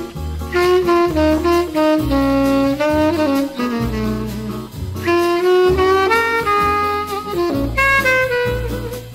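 Bossa nova music: a tenor saxophone plays a flowing melodic solo over a steady repeating bass line.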